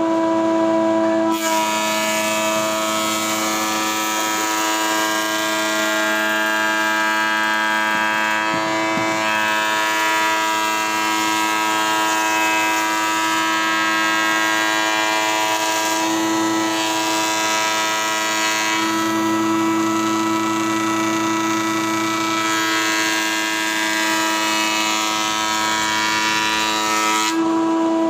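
Table thickness planer's electric motor running with a steady whine. About a second in, a board starts feeding through and the cutterhead's planing noise joins the whine, lasting until shortly before the end, when only the motor whine is left.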